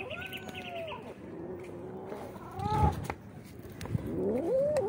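Cats meowing three times: a long, arching meow, a short one a little before three seconds in, and a rising meow near the end.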